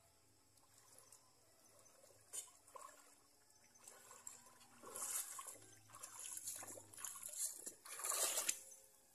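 Water splashing and trickling in irregular bursts, growing louder after the first couple of seconds and loudest near the end.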